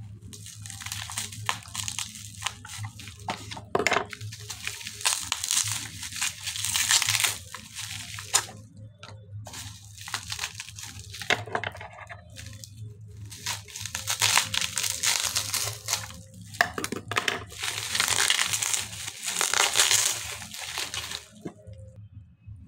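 Plastic bubble wrap crinkling and tearing as it is pulled off a bottle by hand, in several bursts with pauses and a few sharp clicks, over a low steady hum. It goes quiet near the end once the bottle is unwrapped.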